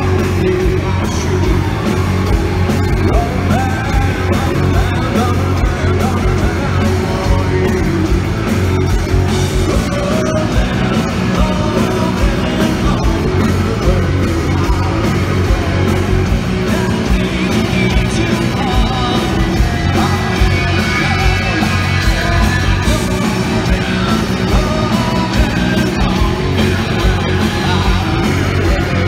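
Live rock band playing loudly, with a singer singing and yelling over it.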